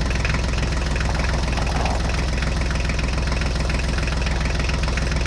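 Tractor diesel engine running steadily with a fast, even chugging knock.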